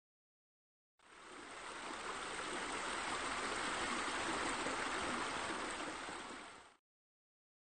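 Steady rush of running water, fading in about a second in and fading out shortly before the end.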